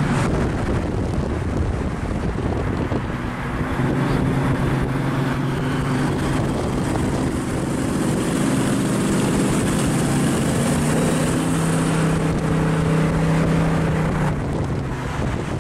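Supercharged hot-rod engine running at a steady highway cruise: an even drone that holds one pitch for most of the stretch and eases off near the end, with wind and road noise rushing past.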